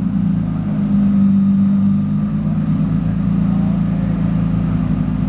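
Porsche 996 Turbo's modified twin-turbo flat-six running at low revs with a steady exhaust drone as the car creeps forward.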